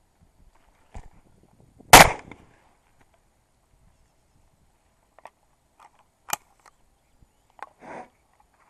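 A single shotgun shot about two seconds in, with a short ringing tail. It is followed by a few much lighter clicks and knocks, the sharpest about six seconds in.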